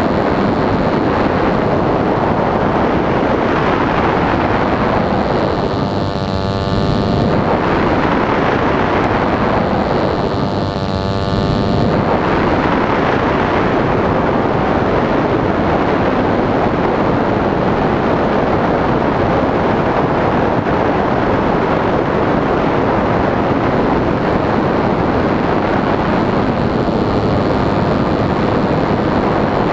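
Ohlsson & Rice Compact III two-stroke gasoline engine of a radio-controlled airplane running steadily in flight and driving its propeller, under heavy wind rush on a wingtip-mounted camera's microphone. Twice, about six and ten seconds in, the sound briefly takes on a sweeping, hollow whoosh.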